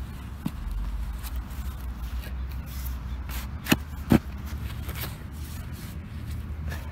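Shovel cutting and scraping through turf and soil, with two sharp knocks about half a second apart a little past the middle.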